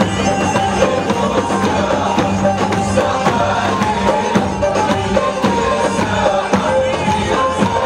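Zaffeh wedding music: a reedy wind melody from a saxophone over a held low drone, driven by Arabic hand drums striking several times a second.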